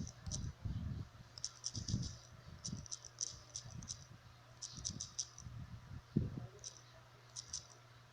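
Quick clusters of small, high clicks from typing on a phone's touchscreen keyboard, with soft low bumps from the phone being handled.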